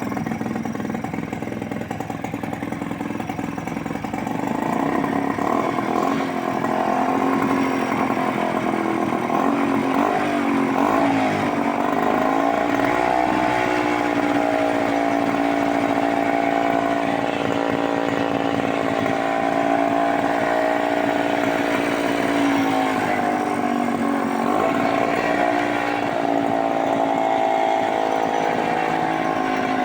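Motorcycle engine running steadily with an even hum, its pitch dipping and recovering twice, about a third of the way in and again past two-thirds.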